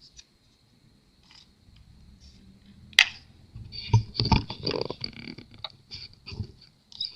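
Handling noise of laptop parts: one sharp click about three seconds in, then a run of small knocks, scrapes and rattles.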